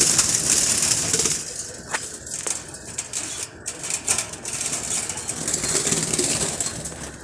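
Lovebirds flapping their wings, a noisy fluttering with scattered sharp clicks that swells and fades.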